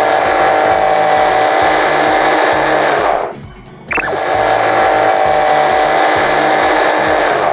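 Braun MultiQuick 7 MQ7035XG hand blender motor running steadily in its chopper bowl, mincing onion. It stops about three seconds in, a click sounds, and it runs again until just before the end.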